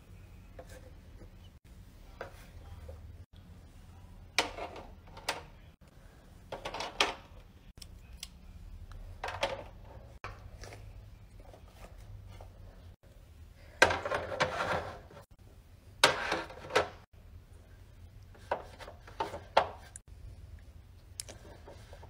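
Fidget toys being handled and set into the plastic trays of a rolling-cart organizer: irregular knocks, clatters and rubbing against the plastic. The longest and loudest stretch comes about two-thirds through, with a few sharper knocks after it.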